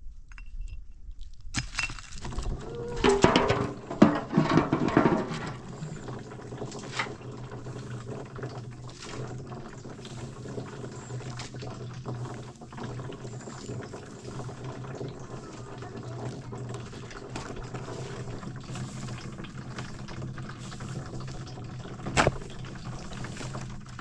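Water pouring steadily, beginning abruptly about a second and a half in, with a low hum under it. Louder irregular sounds come about three to five seconds in, and there is a sharp knock near the end.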